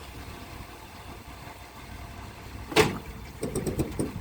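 A vehicle engine idles low. About three seconds in there is one sharp knock, followed by a quick run of light clicks.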